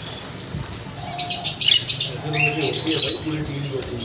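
Budgerigars chirping and chattering: quiet at first, then a run of rapid, high chirps from about a second in until about three seconds in.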